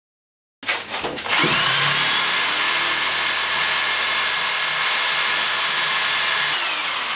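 Corded electric drill spinning up about half a second in, then running steadily as its twist bit bores into a wooden beam.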